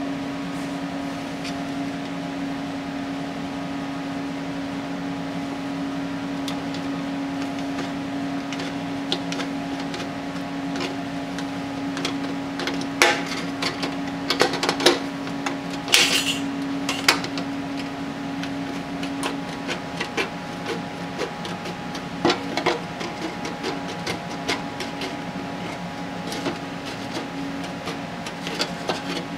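Aviation snips cutting the thin sheet-metal edge of an engine valley pan: irregular sharp snips and clicks, starting about twelve seconds in and going on to the end. Under them runs a steady low hum throughout.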